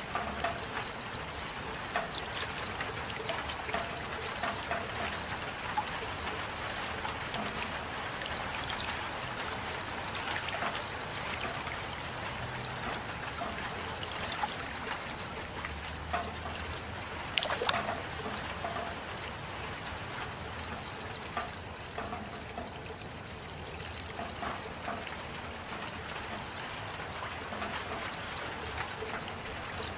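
Steady rain falling, a continuous hiss dotted with many separate drop hits and trickling water, with a brief louder spatter a little past halfway.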